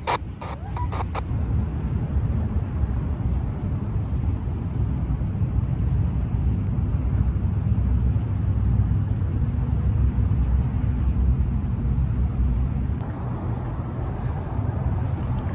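Steady low rumble of road traffic in city street ambience, with a few short clicks at the very start.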